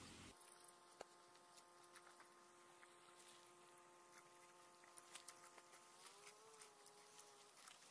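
Very faint, irregular slurping and clicking from a cow drinking water from a tub. Under it runs a faint steady hum that rises slightly in pitch about six seconds in and stops shortly before the end.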